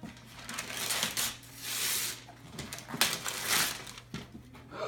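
Wrapping paper being torn and crinkled as a present is unwrapped, in several rough bursts with the loudest rips about two and three seconds in.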